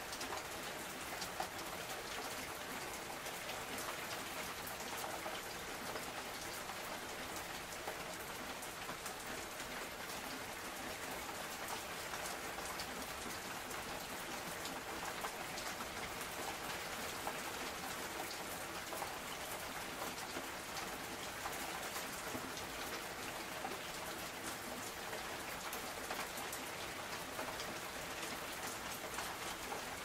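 Steady rainfall: an even, continuous hiss dense with many small, close drop impacts, holding the same level throughout.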